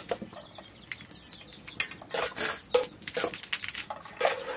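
Fresh leafy greens being snapped and torn apart by hand, stems breaking and leaves rustling in a series of short, crisp crackles.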